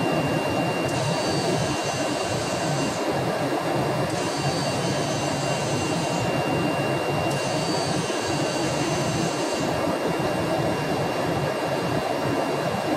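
CNC router running: a steady rushing noise with a constant high whine. A higher set of tones comes on for about two seconds at a time, three times.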